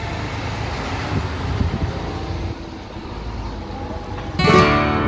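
Steady outdoor background noise, a low rumble with hiss. Music with held notes starts suddenly near the end and is the loudest sound.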